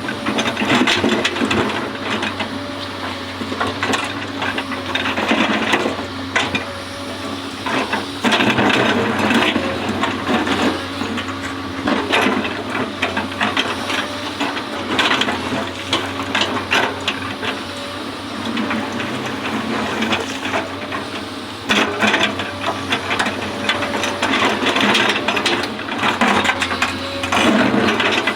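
Hydraulic excavator at work: its diesel engine runs steadily under a wavering hydraulic whine, with frequent knocks and scrapes from the bucket working the ground.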